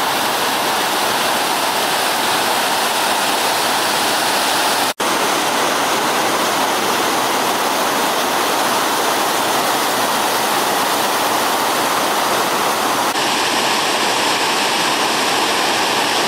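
Steady roar of Kakabeka Falls, a high, heavy waterfall, with a very short break about five seconds in.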